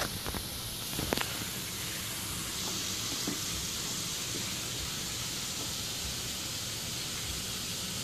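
Butter sizzling in a hot frying pan on an electric coil burner, a steady hiss that grows a little brighter a few seconds in. There are a couple of sharp knocks at the start and about a second in.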